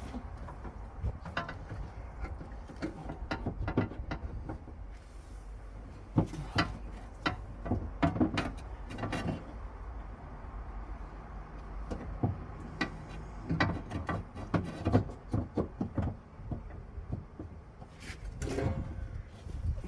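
Irregular clicks, knocks and small rattles of car door parts being handled and worked on, over a steady low hum.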